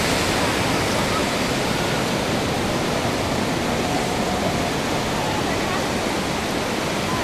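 Surf breaking and washing up a sandy beach: a steady, loud rush of waves.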